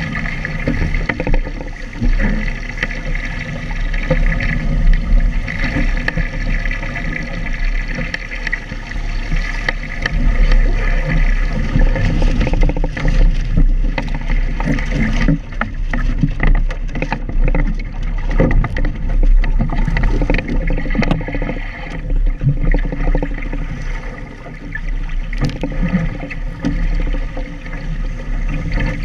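Water rushing and splashing along a sailing dinghy's hull as it sails fast through choppy water, with frequent knocks and slaps of waves against the hull.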